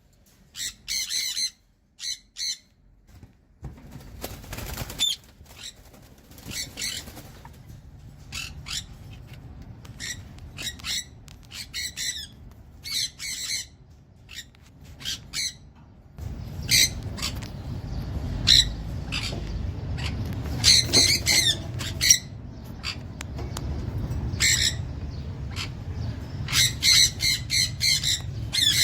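Small parrots squawking: many short, harsh calls in quick clusters. A steady low rumble runs underneath and grows louder about halfway through.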